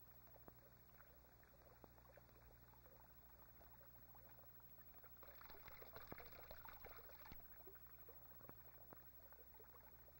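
Faint trickle of water falling from a bamboo spout onto rocks, louder for about two seconds midway; otherwise near silence.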